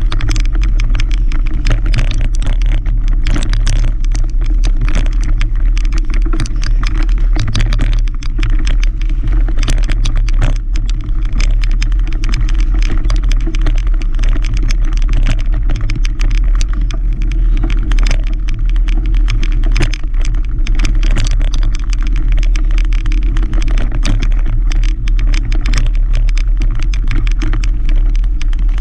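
Mountain bike riding a dirt singletrack trail, heard through a bike-mounted camera: a steady low rumble of wind and tyre noise with constant rattling and clicking as the bike and camera mount jolt over roots and rough ground.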